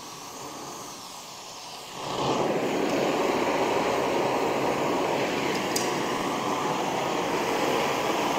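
Oxyacetylene torch flame hissing steadily while preheating a thick aluminium plate to about 400 °F for TIG welding. It gets much louder about two seconds in and stays loud.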